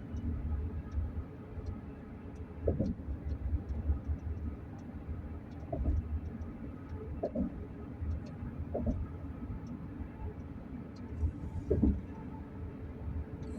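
Steady low road rumble inside a moving vehicle, with a few short thumps from bumps in the road and faint light ticks or rattles.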